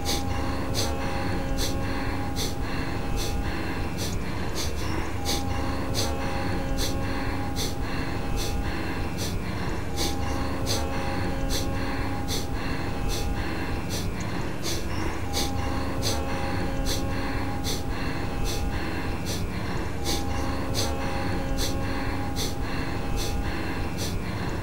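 Kapalbhati breathing: short, forceful exhalations puffed out through the nose in a steady rhythm, about two a second.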